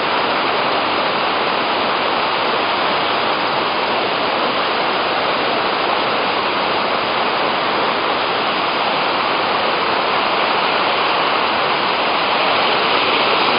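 Waterfall rushing: a steady, loud roar of falling water with no breaks.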